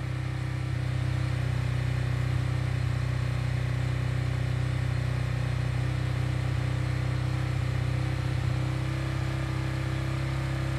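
Honda RS150's single-cylinder four-stroke engine held steady at about 4,500 rpm through an aftermarket exhaust, a constant drone that comes up slightly in the first second and then stays even.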